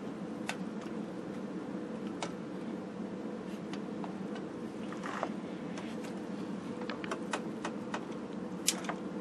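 Scattered light clicks and taps of a screw, grommet and metal parts being worked into a television chassis by hand, irregular, with one sharper click near the end. A steady low hum runs underneath.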